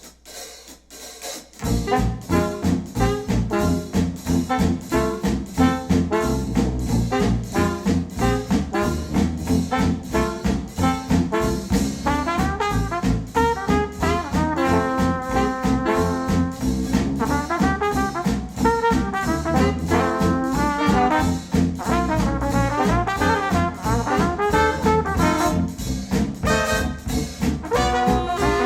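Jazzy brass-band music with trombone and trumpet over a steady beat, played back through Focal Chora 806 bookshelf speakers driven by a NAD C 338 integrated amplifier. It starts after a brief pause about a second and a half in, as a new track begins.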